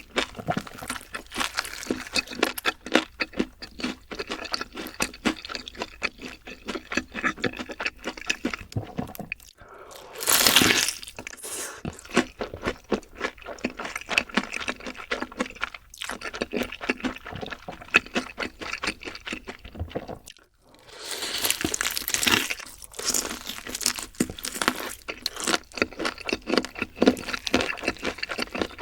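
Close-miked chewing and crunching of fried chicken, a rapid run of crackly bites and chews. Two longer, louder noisy swells come about ten seconds in and again about twenty-one seconds in.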